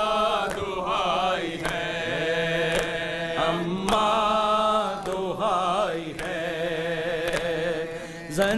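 A noha, an Urdu mourning lament, chanted by a male reciter in long held, wavering notes. Sharp chest-beating (matam) strikes keep time about once a second.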